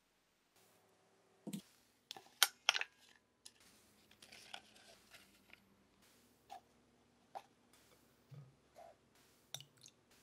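Sharp clicks and taps, with a stretch of paper rustling, as parchment paper is handled and fitted into a round metal cake pan; a few duller knocks and clicks follow near the end.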